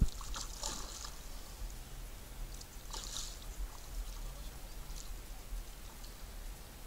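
A hooked carp splashing at the water's surface as it is played on the line: a few short splashes a couple of seconds apart. A brief thump comes right at the start.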